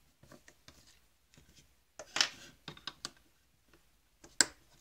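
A screwdriver prying the plastic outlet pipe off a Saeco coffee machine's plastic brew group: scattered plastic clicks and scrapes, with a louder scraping rattle about two seconds in and a sharp click near the end.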